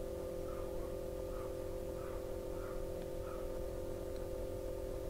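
Steady electrical hum with a few faint, soft fabric rustles as a small plush toy is handled and turned over.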